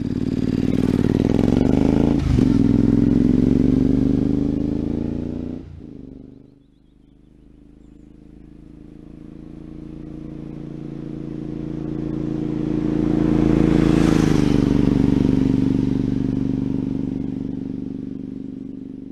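2013 Triumph Speedmaster's parallel-twin engine running through aftermarket Longshot exhaust pipes. It is loud at first and drops away sharply about six seconds in. It then grows steadily as the bike comes closer, passes with a drop in pitch about fourteen seconds in, and fades away.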